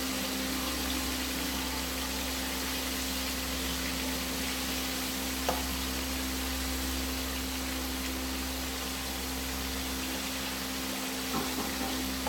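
Breaded pollock fillets frying in a pot of hot canola oil: a steady sizzling hiss over a low steady hum. A single light click about halfway through and a few small knocks near the end.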